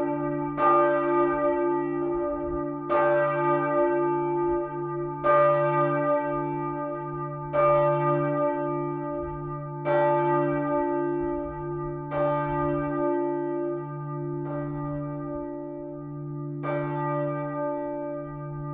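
A church bell tolling before a service: eight evenly spaced strokes about two seconds apart, each one ringing on into the next, the last few a little fainter.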